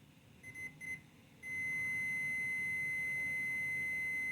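Digital multimeter's continuity beeper: two short blips, then a steady unbroken beep from about a second and a half in as the probes touch the relay's pins. The beep shows continuity where there should be none, which the owner takes as proof that the relay is bad.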